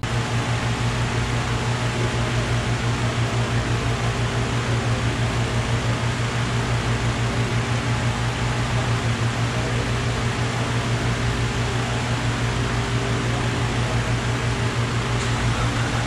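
Large dyno cooling fan running steadily: an even rush of air over a low hum.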